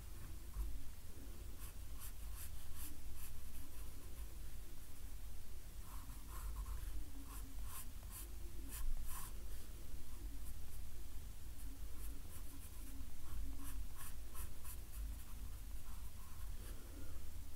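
Pencil drawing on a paper sketch pad: short scratching strokes in runs with pauses between, over a low steady rumble.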